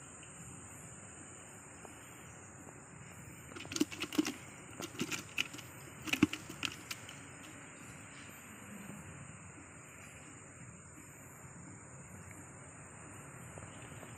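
Steady chorus of night insects, crickets, chirring high and thin throughout. From about four to seven seconds in there is a cluster of sharp clicks and knocks.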